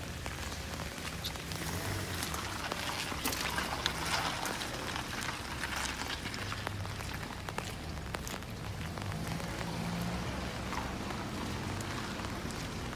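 Rain falling steadily, with scattered close drops ticking, over a low rumble.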